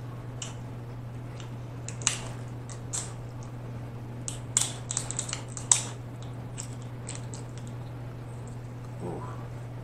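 Snow crab leg shell crackling and clicking as it is broken and the meat is picked out by hand. The small clicks are scattered, with a quick cluster about halfway through, over a steady low hum.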